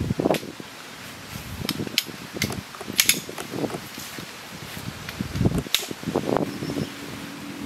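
Tent pitching: scattered sharp clicks and rustling as the KZM X5 tent's poles and fabric are handled, with the loudest click about three seconds in.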